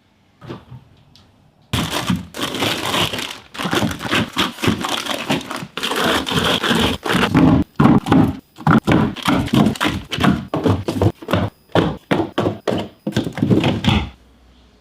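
Food packaging and containers being handled while restocking a fridge: crinkling plastic with a quick run of knocks and thunks as items are set down.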